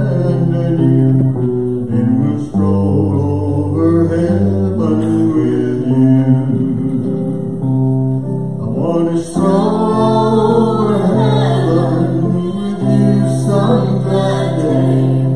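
Live band music: electric and acoustic guitars playing a song over held low notes, with singing.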